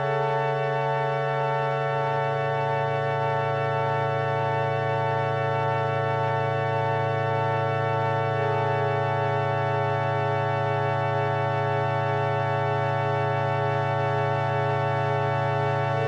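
Background music: a held, organ-like keyboard chord droning steadily, with a low note joining about two seconds in.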